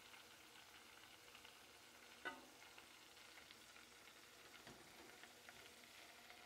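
Faint crackling and sizzling of breaded catfish nuggets deep-frying in hot oil, with one short pitched sound about two seconds in.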